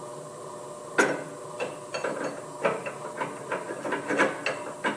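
Open-end wrench being worked on the bottom lock nut of a brake-shoe riveting machine's adjuster: a sharp metal clank about a second in, then irregular clinks and knocks of steel on steel as the nut is tightened. A steady machine hum runs underneath.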